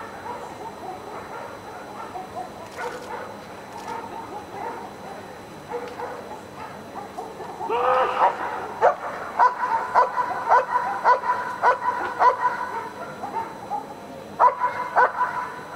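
A black German Shepherd barking repeatedly at the trial helper, guarding him during a protection exercise. A run of barks starts about eight seconds in and goes at about two a second, and a second short run of barks comes near the end.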